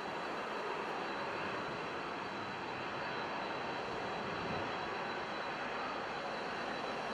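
Jet engines of an Airbus A380 moving along the runway, heard from a distance as a steady rushing hum with a thin steady high whine.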